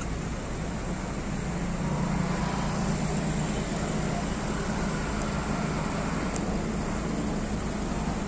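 Road traffic noise with a vehicle engine running: a low hum that swells about a second and a half in and holds steady over a constant hiss.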